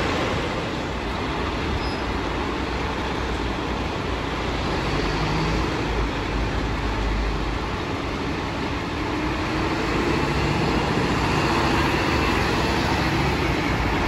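Diesel engine of a Scania P320 fire truck running as it pulls away and drives off, over steady street traffic noise.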